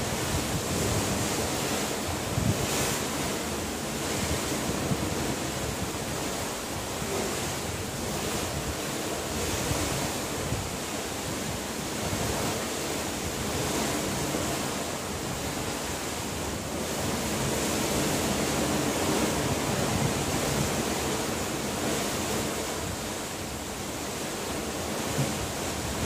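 Wind blowing across the microphone, swelling and easing in gusts, over the wash of the open sea below.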